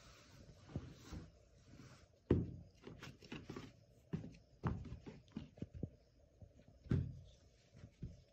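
Scattered soft thumps, clicks and rustling as a pair of rubber flip-flops is lifted out of a cardboard shoebox and set down on a bed. The firmest thumps come about two seconds in and near the end.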